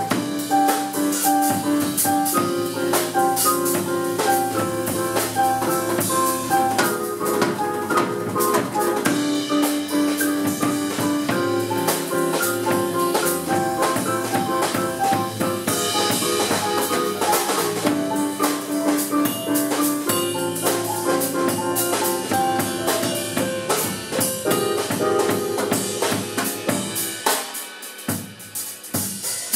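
Jazz piano trio playing: digital piano leading over electric bass guitar and drum kit. Near the end the piano drops out and the drums play on alone.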